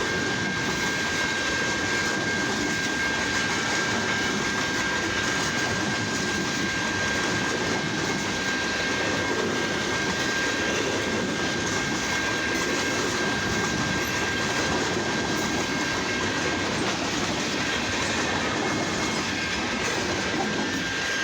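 Railroad cars rolling past: a steady rumble with the clickety-clack of wheels over the rails, and a steady high-pitched tone throughout.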